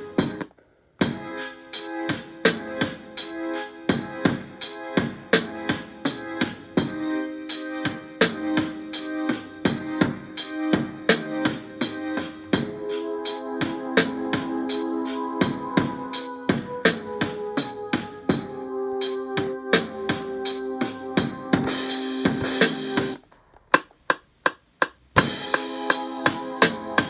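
Drum-machine beat played back from an Akai MPC Live's stock sounds: a steady drum pattern under sustained keyboard notes. The beat cuts out briefly just after the start, and again about three-quarters through, where for about two seconds only a few isolated hits sound before the full pattern comes back.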